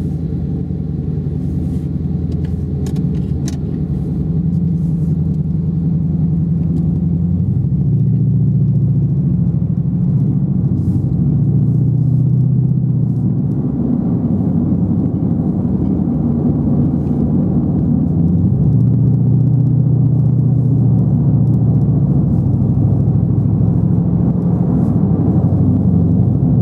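2012 Lexus IS F's V8, fitted with aftermarket headers, intake and exhaust, droning low under mild acceleration, heard inside the closed cabin with the A/C on. Its pitch changes in steps several times as the automatic transmission shifts.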